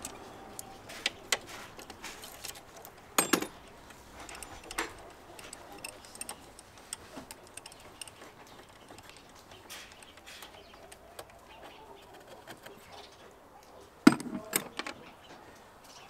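Metal hand-tool work on a car battery: a T-handle socket wrench and the battery's terminal clamps and hold-down clicking and clinking as they are undone, with louder clanks about three seconds in and again near the end.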